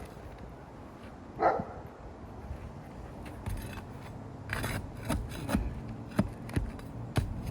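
A dog barks once about a second and a half in, followed by a series of irregular knocks and taps.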